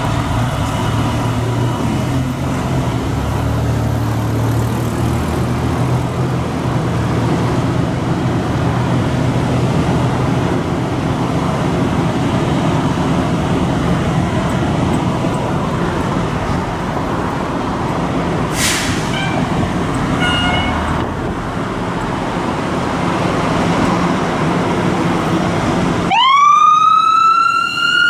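Fire engine's diesel idling steadily in the station bay, with a short burst of hiss about two-thirds of the way through. About two seconds before the end, its siren starts and winds up sharply in pitch.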